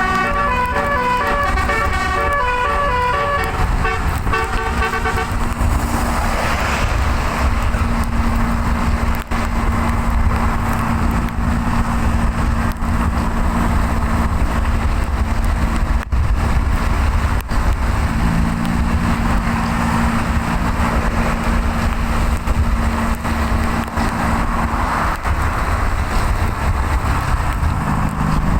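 A bus's telolet musical air horn plays a quick tune of short, stepped notes and stops about five seconds in. After that, steady road and wind noise with a low engine drone runs on.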